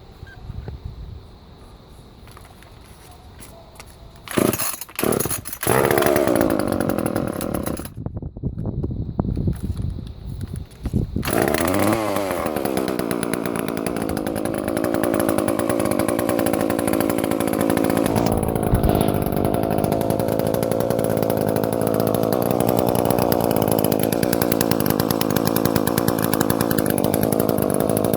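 Echo CS-300 two-stroke chainsaw being started on fresh gas after sitting unused for over a decade. Two short coughs come about four seconds in, then it fires and runs briefly and falters. It catches again around eleven seconds in and settles into steady running.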